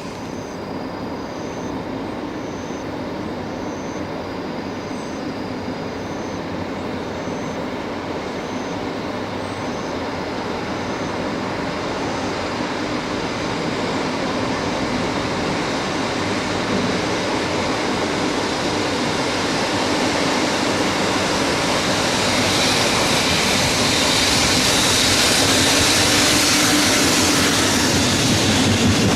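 Freight train running on the rails, its rumble growing steadily louder as it approaches and passes close. A faint high chirp repeats about once a second for the first dozen seconds.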